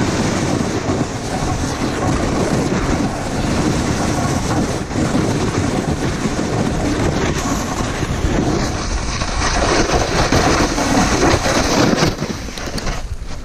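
Snowboard sliding and scraping over firm, chattery snow in a continuous rough rush, loud through the run and dropping away about a second before the end as the board slows out of a hard turn.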